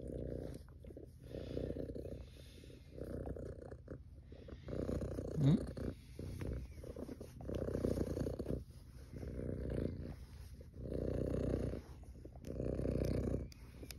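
Domestic tabby cat purring, the purr rising and falling with each breath about every second and a half. A short rising squeak comes about five and a half seconds in.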